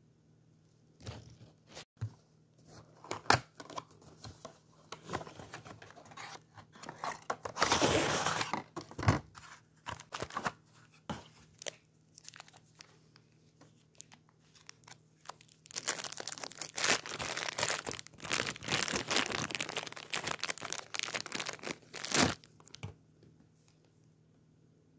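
Cardboard box and plastic packaging being opened by hand: irregular tearing, rustling and crinkling with scattered clicks and taps. There is a loud burst of tearing about a third of the way through, then a longer stretch of crinkling in the second half.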